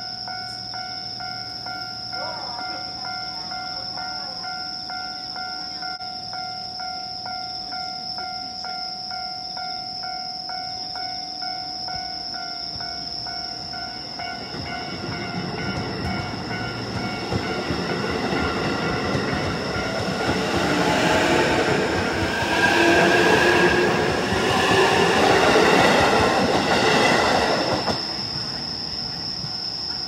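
Joban Line commuter electric train pulling out of the station and passing close by over the level crossing. Its running noise and wheel clatter build from about halfway through and are loudest near the end, with gliding motor tones, then drop away suddenly. The crossing's warning signal rings steadily under it.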